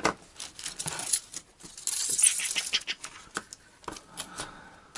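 Hands handling an LED strip, its plastic connectors and packaging: small clicks and rattles, with a denser stretch of rustling about two seconds in.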